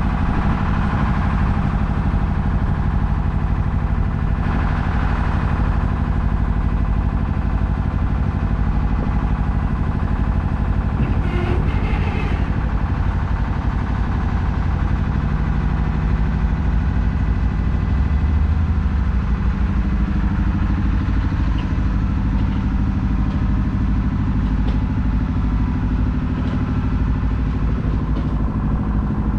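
Engine running steadily with a constant low drone, the kind heard on board a vehicle ferry during a crossing; a brief clatter about 11 seconds in.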